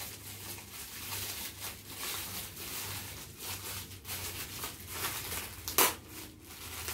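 Shiny gift-wrapping paper crinkling and rustling as it is pulled and torn open by hand, with one sharper crackle near the end.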